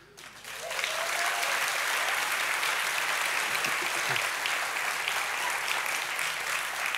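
Theatre audience applauding: clapping builds over the first second, then holds steady.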